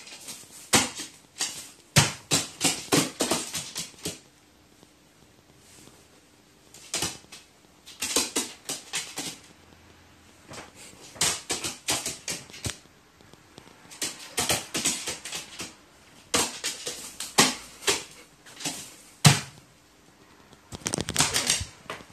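A crow's claws clicking on a bare wooden floor as it hops and walks, in quick runs of taps a second or two long with short pauses between.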